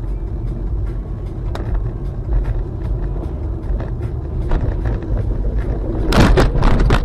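A car driving on a snowy road, heard from inside the car: a steady low engine and road rumble with scattered small knocks. About six seconds in there is a burst of loud thumps and rattling.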